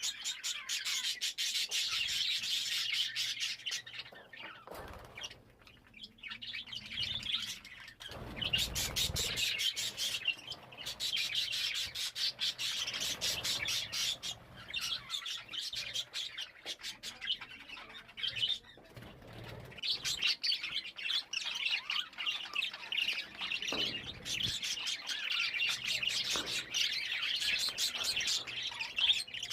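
Small pet parrots chirping and chattering in dense, rapid high calls, with a quieter lull a few seconds in before the chatter picks up again.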